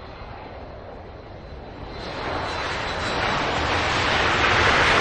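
Jet airplane engine noise, steadily swelling louder and brighter over a few seconds like a plane drawing near. It is a sound effect opening a song, and the music comes in right after.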